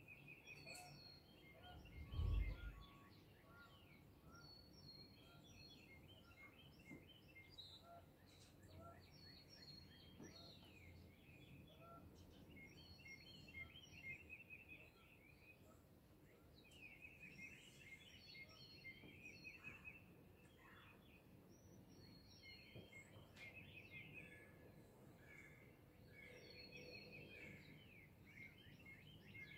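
Faint dawn bird chorus: several songbirds singing quick repeated trills and chirps. A single brief low thump sounds about two seconds in.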